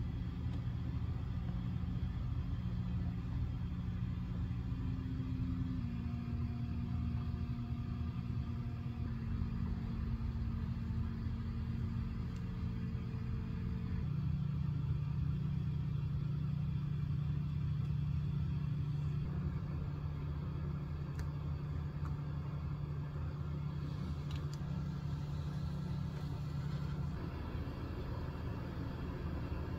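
A steady low hum with a rumbling undertone, its pitch shifting slightly about halfway through, and a couple of faint ticks in the second half.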